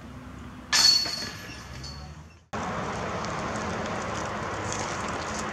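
A disc golf disc striking the metal chain basket about a second in: a sharp hit with a ringing, rattling tail that fades over about a second and a half. After an abrupt cut, a steady outdoor rushing noise.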